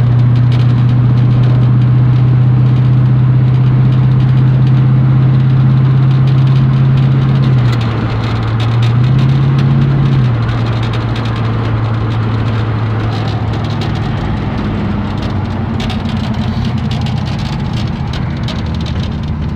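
1982 Chevy C10 pickup's engine running as it drives, heard inside the cab with road noise: a steady low drone. The engine note drops about eight seconds in, comes back up briefly, then settles lower from about ten seconds in.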